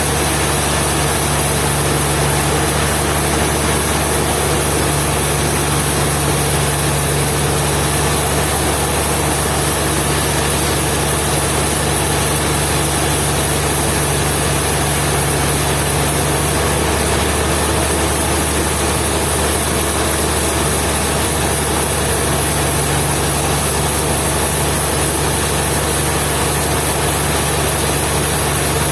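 An engine running steadily with a low, unchanging hum, its load never rising or falling.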